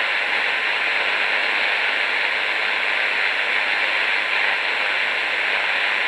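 Steady hiss and static from a Sangean ATS-909X shortwave receiver's speaker, tuned in single-sideband mode to the 20 m amateur band with no one transmitting. The noise is heavy, and the owner puts much of it down to local interference from TV sets in the neighbourhood.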